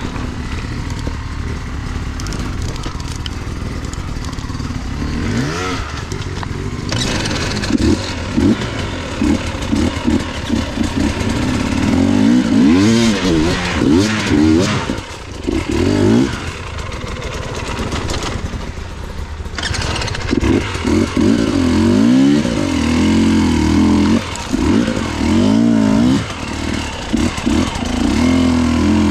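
Off-road dirt bike engine ridden at low speed over rough ground. It holds a steady low note at first, then is blipped up and down over and over, the pitch rising and falling with each stab of the throttle.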